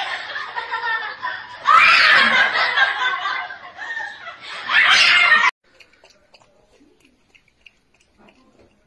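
Young children laughing and shrieking excitedly, with fresh high squeals about two seconds in and again near five seconds. The sound cuts off abruptly at about five and a half seconds, leaving only faint small wet sounds of a raccoon lapping water from a glass.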